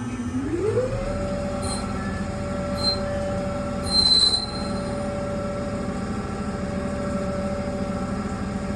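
Tormach Slant-Pro CNC lathe running its program: the spindle drive's whine rises in pitch as the spindle speeds up in the first second, then holds steady. A few short high squeaks sound over it, the loudest about four seconds in.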